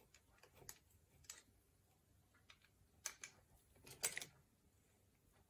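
Faint, scattered clicks and light rattles as hands work on a children's bike's chain and rear wheel, the loudest cluster about four seconds in.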